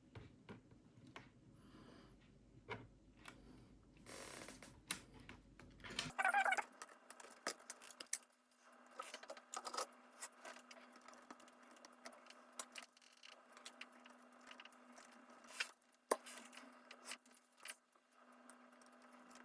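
Faint clicks, taps and scrapes of a ThinkPad T520 laptop's plastic casing and small parts being handled and pried during disassembly. A faint steady hum joins about six seconds in.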